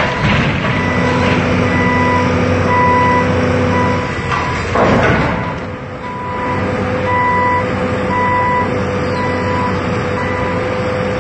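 Excavator's diesel engine running steadily under load, with a reversing alarm beeping roughly once every 0.7 seconds. The beeping pauses briefly around the middle, when there is a louder noisy burst as the machine works the log flume's structure.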